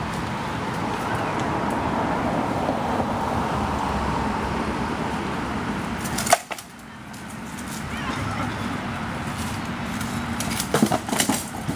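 Armoured sparring: a single sharp knock of a sword blow landing on a shield about six seconds in, then a quick flurry of several knocks near the end, over a steady rushing background noise.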